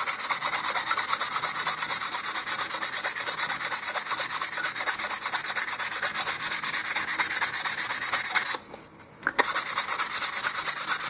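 150-grit sandpaper rubbed by hand around a paper motor-mount tube in rapid, even back-and-forth strokes, scuffing off the glossy surface so epoxy will grip. The strokes stop briefly about eight and a half seconds in, then start again.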